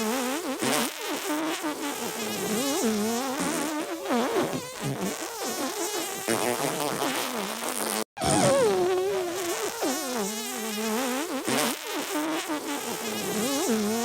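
Cartoon-style fart sound effects over music, with wobbling pitched tones. The audio drops out for an instant about eight seconds in, then picks up again with a similar pattern, as if the loop restarts.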